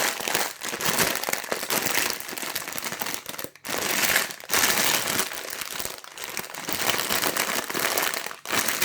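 Plastic parts bags crinkling and rustling as they are handled and sorted, in irregular surges with brief pauses.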